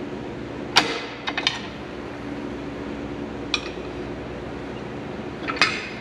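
A handful of sharp metal clinks and knocks as a steel truck brake shoe is handled against the axle's brake spider and hub, the loudest about a second in, with a steady low hum underneath.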